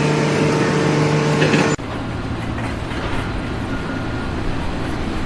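Heavy machinery or a large vehicle engine running with a steady hum, cutting abruptly about two seconds in to a quieter, even mechanical noise.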